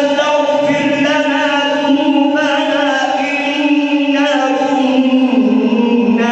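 A man reciting the Quran in a melodic, chanted style, drawing out long held notes with wavering ornaments; the pitch steps down about five seconds in.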